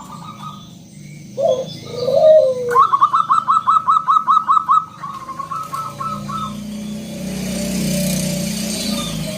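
Zebra dove (perkutut) cooing: a couple of low, arching coos, then a fast run of about ten short, evenly repeated notes and a few more after it. A steady hiss rises under it in the last few seconds.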